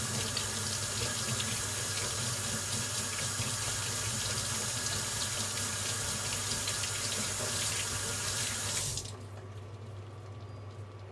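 Kitchen tap running into a sink, shut off suddenly about nine seconds in.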